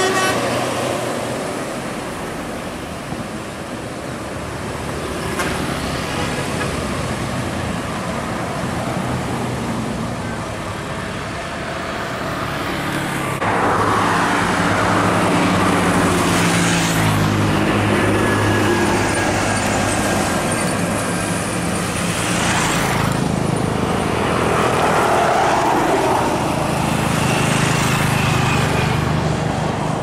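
Road traffic passing, with the engines of heavy vehicles such as buses and trucks running. It gets louder about halfway through as big vehicles come closer. Near the end a few faint steady tones sound briefly over the traffic.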